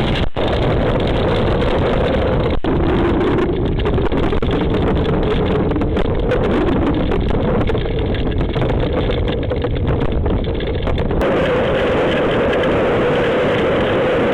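Strong storm wind buffeting a camera's microphone, a loud steady rush. It cuts out briefly twice in the first few seconds, and the sound changes about eleven seconds in.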